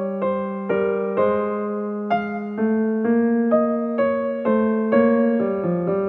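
Piano music: a slow melody of single sustained notes, a new one struck about every half second, over a held low note.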